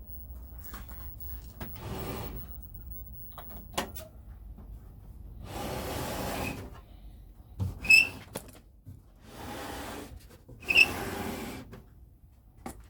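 A few sharp clicks and clunks, the loudest two about three seconds apart, between short stretches of rustling, mechanical-sounding noise.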